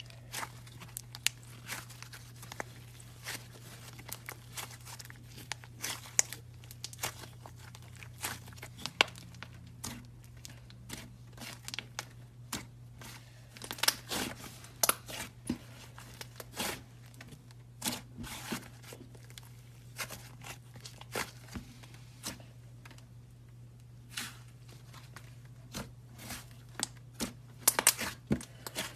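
Slime being squeezed and stretched by hand, giving off irregular sharp clicks and pops, a cluster of them near the end, over a steady low hum.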